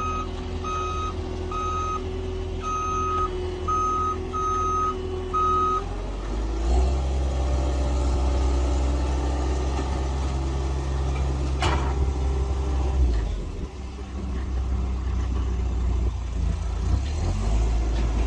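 Reversing alarm of a heavy vehicle, six beeps in the first six seconds, over the steady low rumble of its engine. The engine then grows louder for about six seconds, with one sharp clank partway through, before settling back.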